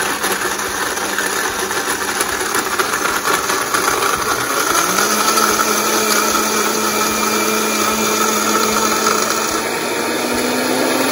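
Countertop blender running loud, crushing ice with lime juice and water into a slushy. About five seconds in, a steady motor hum comes up under the noise.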